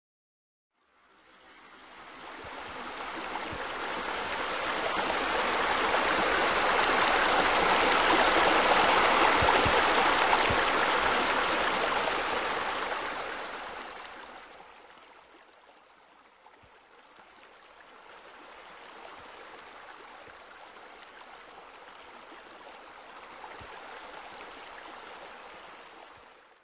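Running water splashing steadily from a rock waterfall into a pool. It fades in, grows loud, drops to a quieter rush about halfway through, and cuts off at the end.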